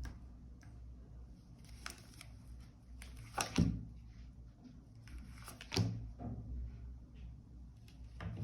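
Tarot cards being handled and laid down on a table: a few short rustles and light taps, four or so, spaced a couple of seconds apart.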